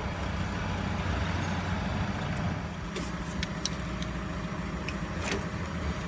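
Steady low rumble of a motor vehicle engine running, with a few light clicks of hands handling parts in the engine bay.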